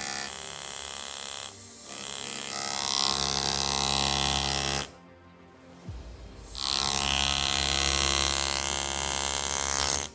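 Jeweler's flex-shaft rotary handpiece running a bit against a silver ring in three bursts, a short one and then two longer ones, each a steady whine that stops abruptly.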